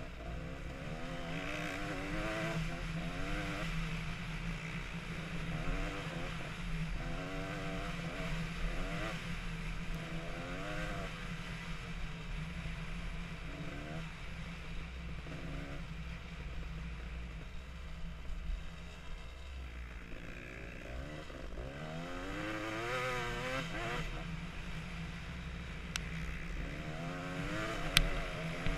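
Dirt bike engine heard from the bike itself, revving up and down over and over as the rider works the throttle along a slippery, muddy track, over a steady low rumble. A couple of sharp clicks near the end.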